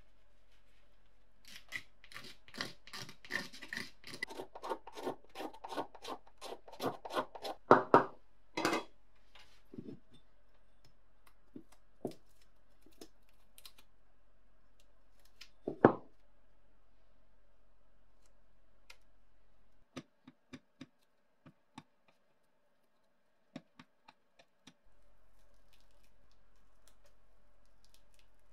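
Hand scraping of old flaking paint off small metal guillotine parts: a run of quick rasping strokes, about three a second, then scattered taps and clicks from the parts and tools, with one louder knock midway.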